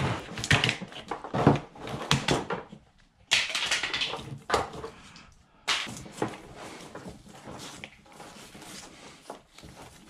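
A Jeep TJ factory wiring harness being stripped by hand: plastic wire loom and factory tape are pulled off the wires. It is an irregular run of crackling, rustling and scraping with a few longer tearing sounds, and it grows quieter in the last few seconds.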